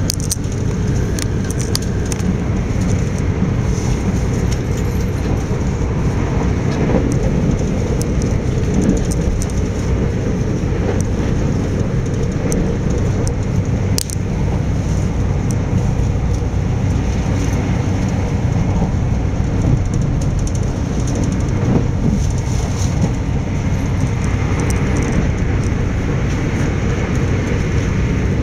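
Steady rumble inside an Electrostar electric multiple-unit train running at speed, the wheels and running gear droning evenly, with a few short sharp clicks.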